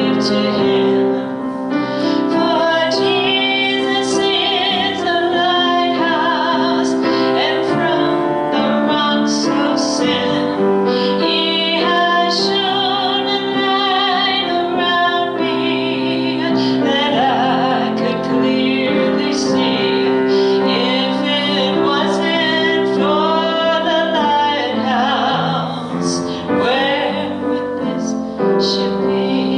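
A woman singing a gospel song with vibrato over piano accompaniment.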